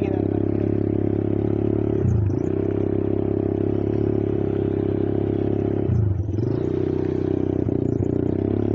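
Small engine of a beach ride vehicle running steadily under throttle on sand. Its pitch dips and picks up again twice, about two seconds in and about six seconds in, as the throttle is eased and reapplied.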